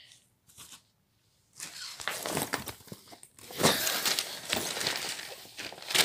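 Plastic wrapping and padded cricket gear rustling and crinkling as they are shifted about inside a kit bag, starting about one and a half seconds in.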